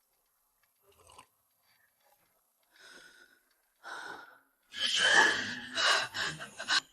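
A person's breathy vocal sounds: two short gasps or breaths, then louder strained, noisy vocalising for the last two seconds.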